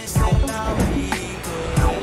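Hip hop background music: a rap track with repeated heavy bass drum hits under a melodic line, in a short gap between the rapped verses.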